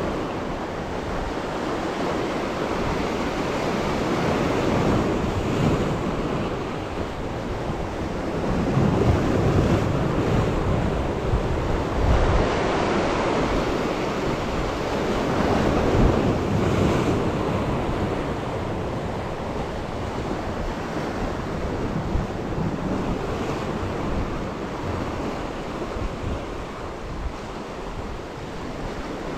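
Sea waves breaking and washing over shoreline rocks, with wind buffeting the microphone. The surf swells louder a few times.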